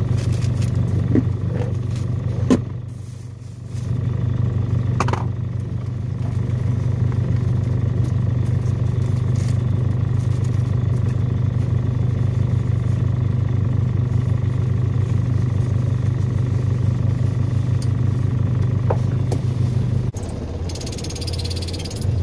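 1984 Nissan 720 pickup's engine idling steadily while warming up after a cold start, heard from inside the cab. Near the end the sound shifts, with some handling noise.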